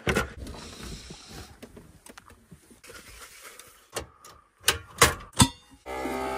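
Handling noises from a portable butane cassette gas stove being set up: scattered clicks and knocks, then three sharp clacks about a second before the end. A steady buzzing tone starts near the end.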